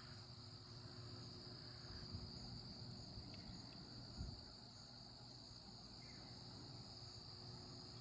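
Faint, steady, high-pitched insect chorus that does not let up, with a low rumble underneath and a small low thump about four seconds in.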